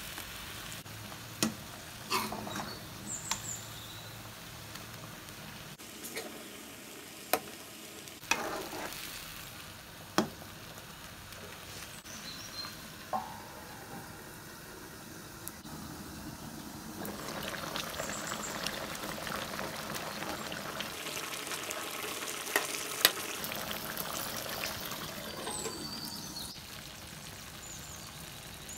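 Chicken in a thick cashew-and-onion sauce sizzling and bubbling in a karahi on a gas stove, with scattered sharp clicks and knocks of a utensil and the metal lid against the pan. The sizzling grows louder about two-thirds of the way through.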